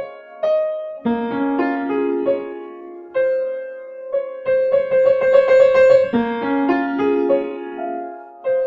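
Piano music: a slow melody of single struck notes, with a quick run of rapidly repeated notes in the middle.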